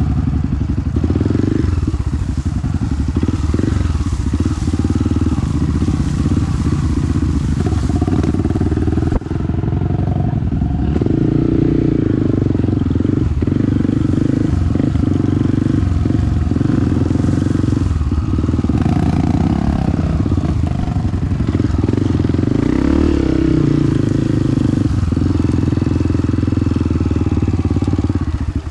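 Honda CRF250F trail bike's single-cylinder four-stroke engine running steadily under way, its note dipping briefly a few times, most sharply about nine seconds in.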